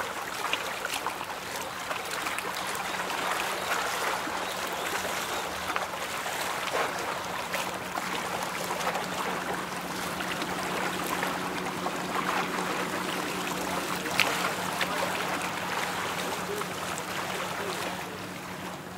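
A cargo ship's bow wave rushing and splashing against the hull, with a steady low engine hum underneath.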